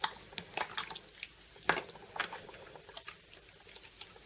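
Slime being squeezed and stretched by hand, giving irregular small wet pops and clicks as air bubbles in it burst, the loudest about one and a half seconds in.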